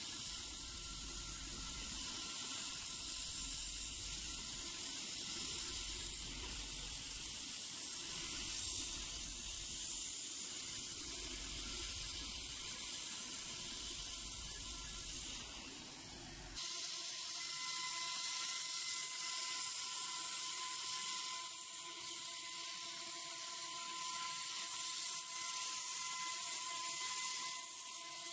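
Self-built PrintNC CNC router milling a 6061 aluminium plate, a steady hissing noise of spindle and cut. About halfway through the low rumble drops away and a few steady high tones from the spindle come through.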